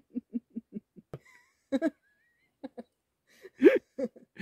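A man and a woman laughing together: a run of short rhythmic 'ha' pulses, about five a second, trails off within the first second. Scattered bursts of laughter follow, with the loudest outburst near the end.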